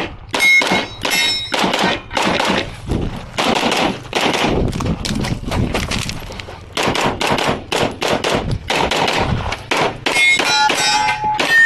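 Rapid strings of pistol shots in a competition course of fire, with steel targets ringing with a clang when hit. The ringing is clearest just after the start and again near the end.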